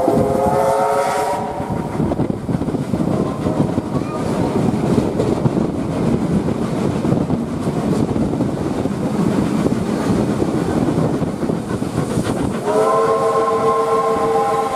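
A steam locomotive's whistle sounds several steady notes at once, cutting off about a second and a half in. The train's wheels then rumble and clatter along the rails at speed until the whistle blows again near the end and holds.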